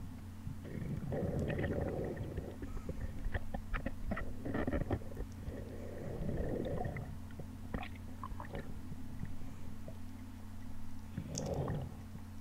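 Muffled underwater sound picked up by a diver's camera: uneven rumbling, gurgling bursts and scattered sharp clicks over a steady low hum.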